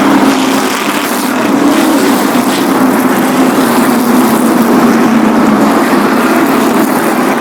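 A pack of NASCAR Cup Series stock cars running at full throttle, their V8 engines blending into one loud, steady drone.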